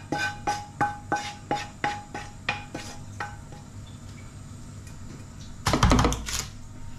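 Wooden spoon knocking food out of a metal frying pan. It taps the pan about three times a second and the pan rings briefly with each tap. A louder clatter comes near the end.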